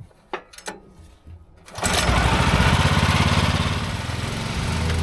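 Small gasoline engine of a Woodland Mills HM126 portable band sawmill being started: a few light clicks, then about two seconds in it catches and runs steadily.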